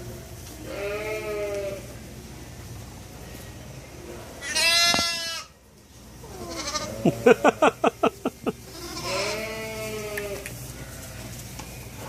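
Lambs bleating: four separate calls, the second high and the loudest, the third a long quavering bleat.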